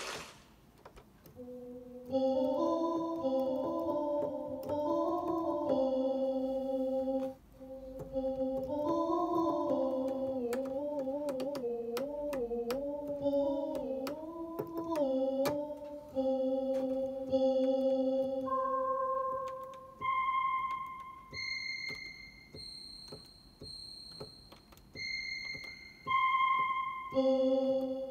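Roland SK-88 Pro keyboard with its built-in Sound Canvas synth module playing sustained chords and notes. In the middle the held notes are bent up and down in pitch with the bender lever several times. Near the end single high notes sound in different octaves.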